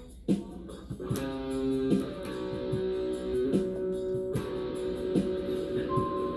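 Guitar music: plucked notes and chords ringing out, with a new chord struck every second or so.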